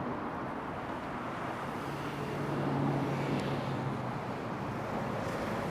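Steady outdoor background of distant road traffic. A low hum from a passing vehicle swells and fades in the middle.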